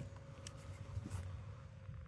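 A few faint clicks and light knocks, about half a second apart near the start, over a low steady hum.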